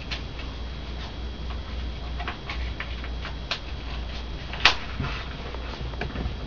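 Paper crinkling and crackling as it is folded and creased by hand, in irregular small crackles with one sharper crackle near the end, over a low steady hum.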